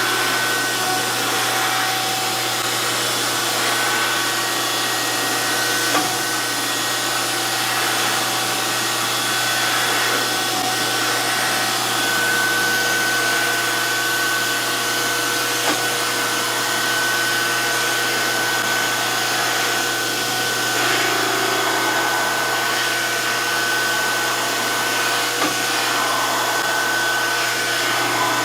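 DoAll 14-inch surface grinder running steadily, its motor and spinning wheel giving a continuous whirring hum with a high steady tone, while a part is being ground. There are a few small clicks.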